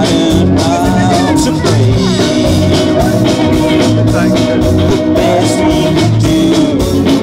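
Live band playing a song through the stage PA: electric guitars and keyboard over a steady beat.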